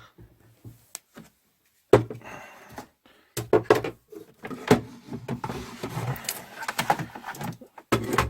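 Knocks, clicks and rubbing of equipment being handled and moved about on a workbench, starting about two seconds in and going on irregularly.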